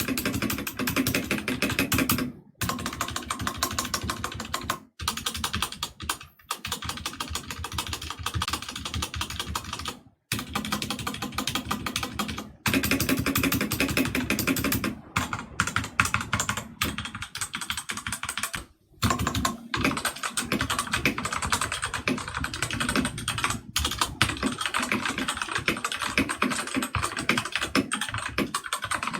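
Typing test on a stock Drevo Calibur V2 mechanical keyboard with Outemu Red linear switches and ABS keycaps: fast, continuous key clacking, broken by a few brief pauses.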